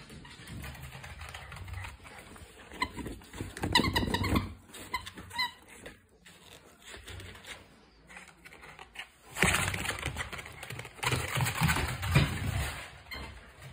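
Rubber eggplant dog toy squeaking as a miniature dachshund bites it: a handful of short high squeaks about four to five seconds in. Later comes a stretch of scuffling and rustling as the dog tussles with the toy.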